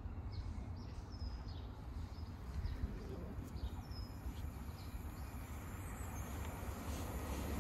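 Small birds chirping in short, repeated calls over a steady low outdoor rumble. Near the end the rumble begins to build as a train approaches.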